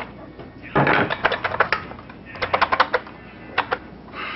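Nail gun firing in rapid runs of sharp clacks: about eight quick shots a second in, another run of about seven, then two more.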